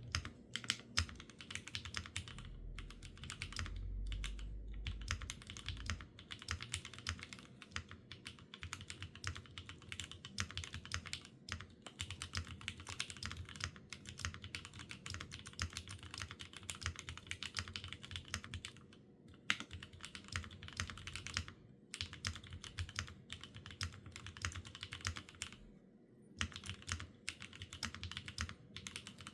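Typing on a Neo65Cu mechanical keyboard with stock Gateron Oil King linear switches on a foamless polycarbonate plate and GMK Bingsu keycaps: a fast, continuous stream of keystrokes with a few short pauses.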